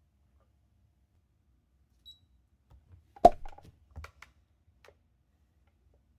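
A quiet room, then a single sharp knock just past the middle, followed by several lighter clicks and taps over the next second and a half.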